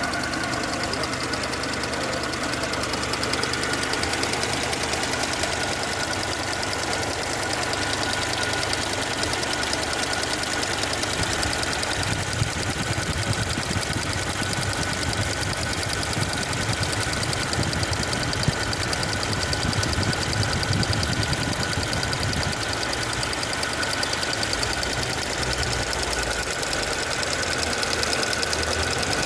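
Mercedes B-Class petrol engine idling with its EVAP canister purge valve ticking rapidly as it cycles open and shut. The noise is the valve working normally while active, not a fault.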